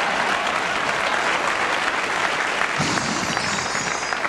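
Studio audience applauding steadily after a joke, with a brief shout from one voice about three seconds in.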